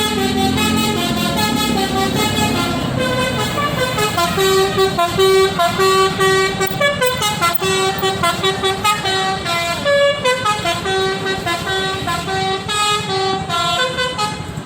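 A basuri (telolet) multi-tone musical vehicle horn playing a tune of quickly changing notes, over the rumble of a running engine.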